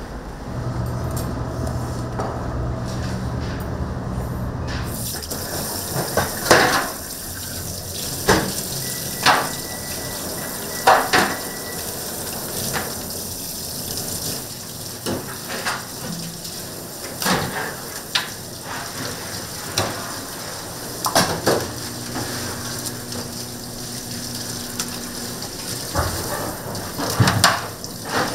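Restaurant kitchen work: water running steadily under repeated sharp clatters and knocks of dishes and utensils, with a low machine hum in the first few seconds.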